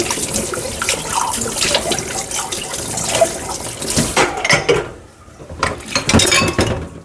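Kitchen tap running into the sink as dishes are rinsed under it, with clinks of crockery; the water stops about five seconds in, followed by a few knocks of dishes being handled.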